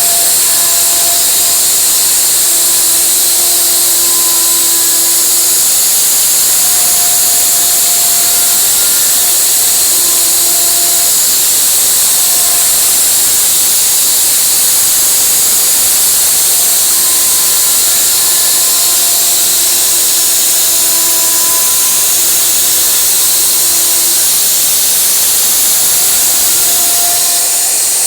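CNC wood router's spindle running and cutting wood in a steady, high hiss, with short steady tones at different pitches coming and going every second or two.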